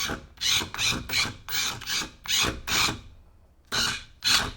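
Tiny four-wheel-drive RC car's small motors whirring in short bursts with a scrubbing rasp from the wheels, about two bursts a second with a pause about three seconds in, as it is driven in quick jerks.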